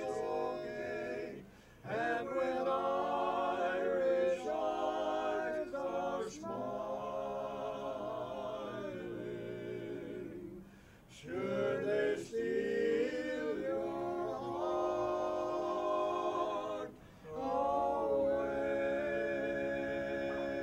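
Barbershop quartet singing a cappella in close harmony, holding chords with a slight waver. The singing breaks off briefly between phrases three times.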